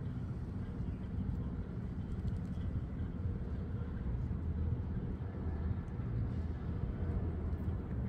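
Steady low outdoor rumble, with a few faint ticks above it.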